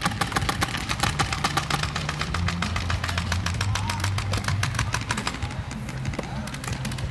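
Paintball markers firing in rapid strings, many shots a second, thinning out after about five seconds, over a steady low hum.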